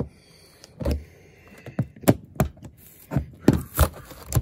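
Irregular metallic clicks and knocks from a hex driver bit working screws in the galvanized sheet-metal panel of an air handler: about eight short, sharp strikes scattered through, with quieter gaps between.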